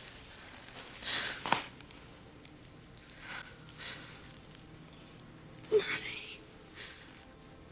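A person's ragged, gasping breaths, about five short ones, the loudest just before the end with a brief voiced catch in it.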